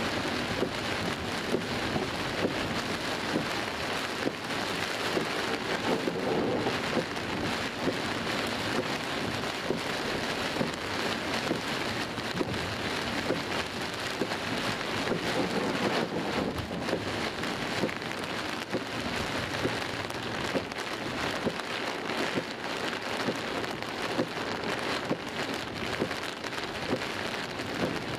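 Heavy rain pelting a car's windscreen and roof, a dense, steady patter of countless drops heard from inside the car.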